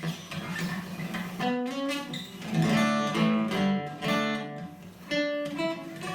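Acoustic guitar being picked, separate ringing notes and a few chords with short gaps between them.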